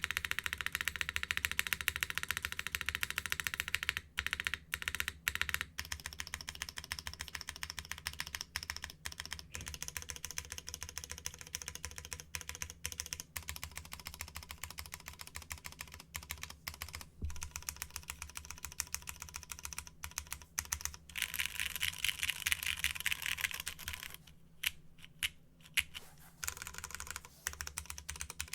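Continuous typing on a Plaque80 mechanical keyboard with an aluminium plate, Cherry MX Red linear switches and Aifei R2 keycaps: a dense stream of keystroke clicks with short pauses. A faster, louder flurry comes about three-quarters of the way through.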